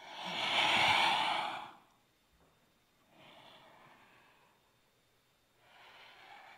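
A woman breathing audibly through a slow yoga flow: a long, loud, sigh-like out-breath at the start, then two much fainter breaths a few seconds apart.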